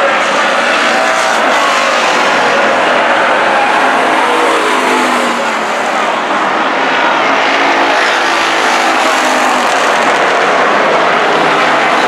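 A pack of dirt-track race cars running at speed around the oval, their engines overlapping in a loud, continuous sound whose pitch rises and falls as the cars pass and come off the turns.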